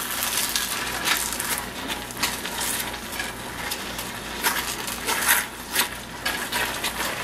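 Wooden spoon stirring a thick egg cream sauce in a metal skillet, with irregular scrapes and knocks against the pan.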